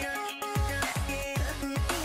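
Background electronic pop music with a steady beat: deep kick drums that drop in pitch, about two to three a second, under held synth tones.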